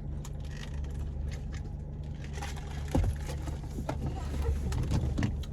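Car engine running with a steady low hum, heard inside the cabin, with scattered small clicks and knocks; the strongest comes about three seconds in.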